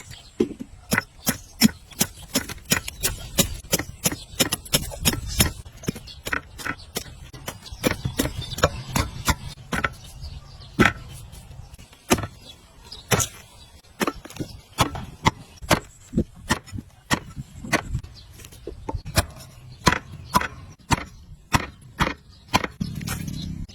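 Knife chopping on a cutting board, a few sharp strokes a second at an uneven pace, typical of cutting up jackfruit or vegetables for a curry.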